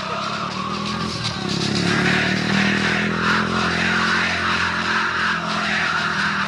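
Motor vehicle engine running, its hum growing stronger about a second and a half in, over a steady rushing noise.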